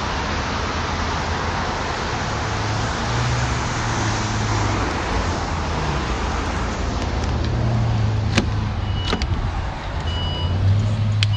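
Steady vehicle noise with a low hum throughout. A few sharp clicks come near the end as the driver's door of the Volvo XC60 is opened, then a faint repeating warning chime starts.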